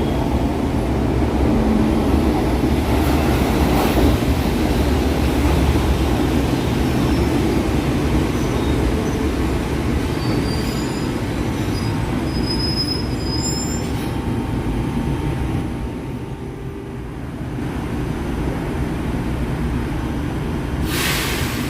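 São Paulo Metro Line 1 train running through the station: a steady, heavy rumble of wheels and traction motors, with thin high wheel squeals coming and going in the middle. The rumble eases off briefly late on, then a short, loud hiss sounds near the end.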